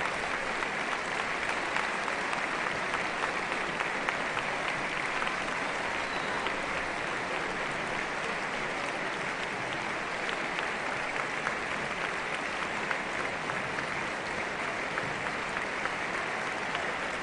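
Concert-hall audience applauding steadily after a performance, with the band's players joining in the clapping.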